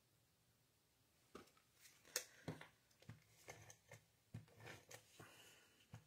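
Faint rustles and light taps of cardstock being handled: a white card panel slid into place and pressed down onto a card base. The sounds begin about a second in and come as a scatter of short, soft ticks.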